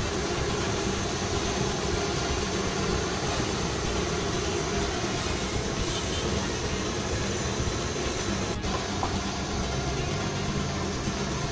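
Boondi batter drops deep-frying in a large karahi of hot oil: a steady, even sizzle.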